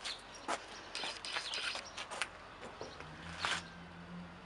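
Small birds chirping in short scattered bursts. A faint low hum comes in about three seconds in.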